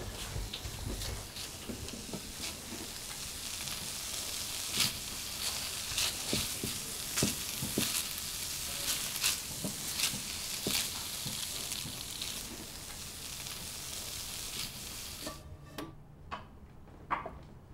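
Scrambled eggs sizzling in a non-stick frying pan, stirred with a wooden spatula that scrapes and taps against the pan now and then. The sizzling stops about fifteen seconds in, followed by a few light knocks.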